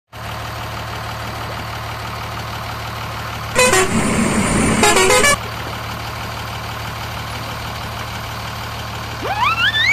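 Steady truck-engine drone with a loud two-part truck horn honk about three and a half seconds in. Near the end a stepped, rising glide starts.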